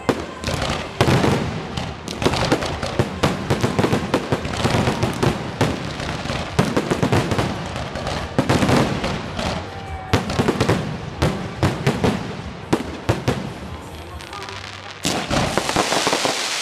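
Fireworks display: a rapid run of sharp shell bursts and crackling, one bang after another. Near the end a dense rushing hiss sets in.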